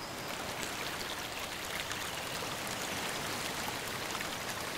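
Running water splashing steadily, with many small drip-like splashes.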